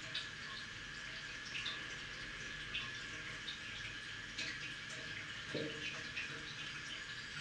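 Water running from a bathroom tap into a sink, with small irregular drips and splashes over a faint steady hum.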